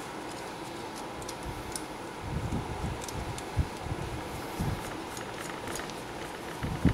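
Soft knocks and light metal clicks of a Yamaha Banshee cylinder and its base nut being handled and fitted, over a steady hum; the sharpest knock comes near the end.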